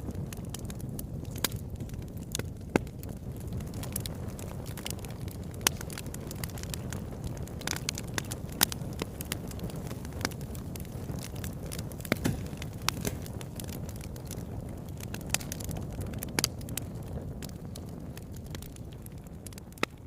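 Wood fire burning in a fireplace: a steady low rumble of flames with frequent sharp crackles and pops at irregular intervals, a few of them louder.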